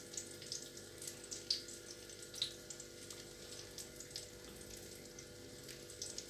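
Battered hake frying in hot sunflower oil in a pan: a quiet steady sizzle with scattered crackles and pops, two sharper pops about one and a half and two and a half seconds in.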